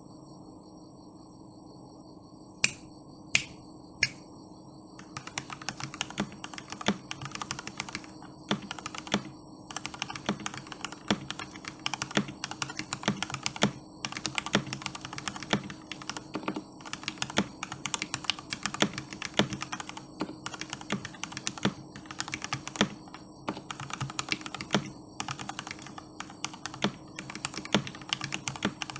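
Typing on a GK61X mechanical keyboard with lubed and filmed Gateron Milky Black linear switches, set directly on the desk with no deskmat. Three single key presses come about three seconds in, then steady continuous typing.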